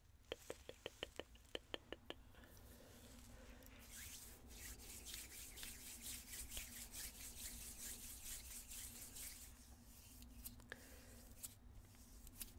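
A quick run of about nine soft clicks, roughly five a second, then palms rubbing together close to the microphone: a soft, dry swishing that swells in the middle and fades out near the end.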